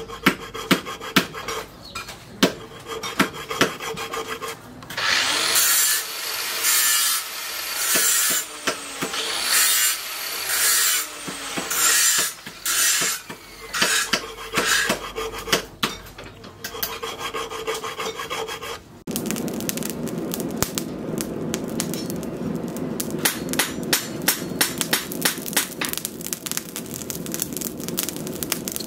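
A hand file scraping along the steel edge of a hand-forged sickle blade: light strokes at first, then a series of long, loud strokes. About two-thirds of the way through, the strokes stop and a steady crackling noise takes over abruptly.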